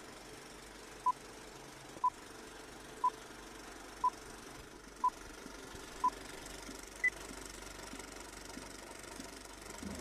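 Film-leader countdown beeps: six short, identical beeps, one each second, then a single higher-pitched final beep a second later, over a steady faint hiss.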